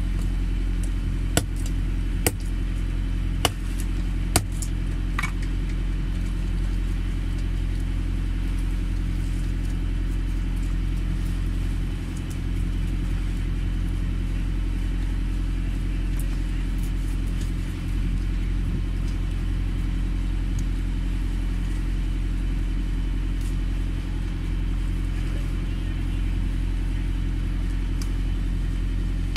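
A steady low engine hum, with several sharp knocks in the first five seconds from a long knife chopping through barracuda on a cutting board.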